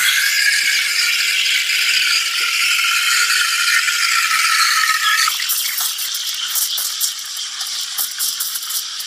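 Espresso machine steam wand hissing loudly as it steams milk in a stainless steel pitcher. About five seconds in, with the wand tip lower in the milk, the hiss turns quieter and crackly.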